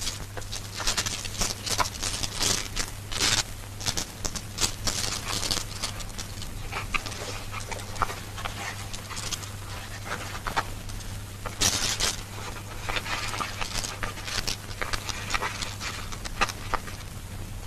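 Handling noise: cloth and banana leaves rustling and crinkling as hands wrap loose rifle cartridges into a bundle, with many quick irregular clicks. A steady low hum runs underneath.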